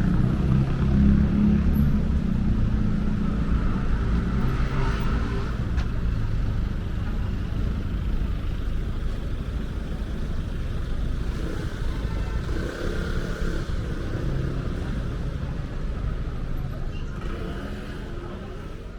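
City street ambience dominated by the low rumble of passing car traffic, with faint voices, fading out near the end.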